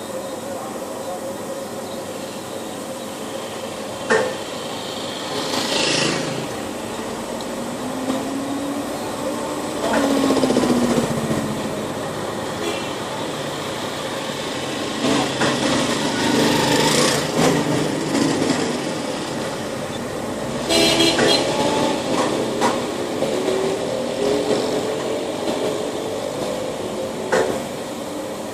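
Village street ambience: small engines passing, their pitch rising and falling, with a few sharp knocks and clatters among a steady background of traffic and activity.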